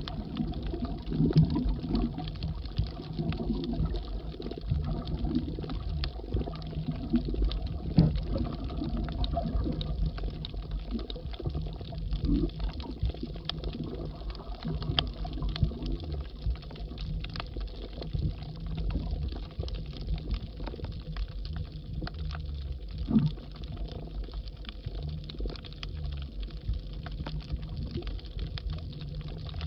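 Underwater ambience picked up by a submerged camera over a coral reef: a low, uneven rumble of water moving against the housing, with a few louder bumps and many scattered sharp clicks and crackles throughout.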